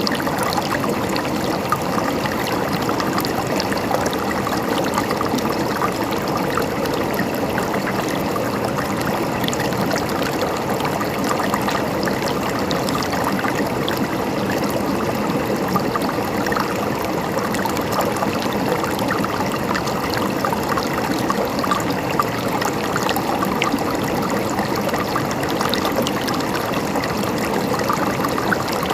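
Flowing water gurgling and trickling steadily, with many small splashes and droplets.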